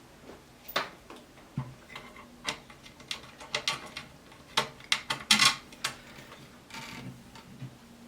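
Irregular small clicks and knocks of hard parts being handled, with the loudest cluster a little past halfway through.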